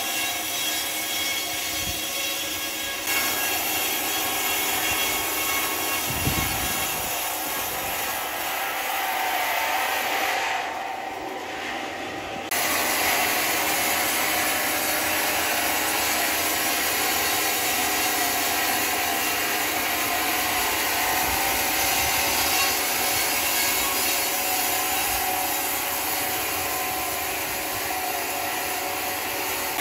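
Sawmill saw cutting through timber: a loud, steady machine noise with a dense high hiss. The sound changes abruptly a few seconds in, and goes quieter and duller for about two seconds about a third of the way through.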